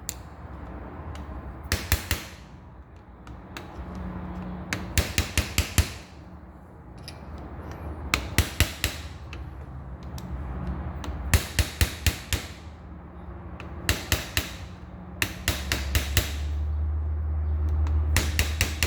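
Hammer blows on metal at a 1976 Corvette's steering column and shaft, in quick bursts of three to six sharp strikes every couple of seconds. A steady low hum runs underneath and grows louder in the last few seconds.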